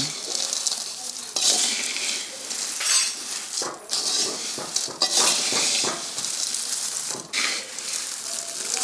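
Metal ladle stirring a kadai full of dry, crisp fried mixture (corn flakes, sago, peanuts, sev): the pieces rustle and crackle and the ladle scrapes the metal pan in short, irregular strokes.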